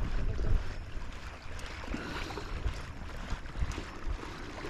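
Wind rumbling on the microphone over the wash of sea water against the shore, steady with a few soft bumps.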